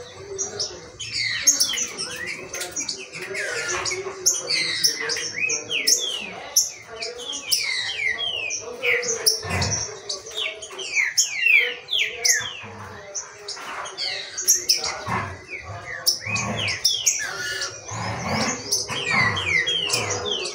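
Caged green-winged saltators (trinca-ferro) calling and singing, worked up in a warm-up: many quick, overlapping chirps and whistled sweeping phrases.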